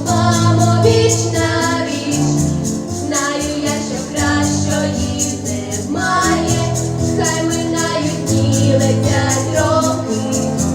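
Pop song with a steady, fast beat and a female voice singing the melody.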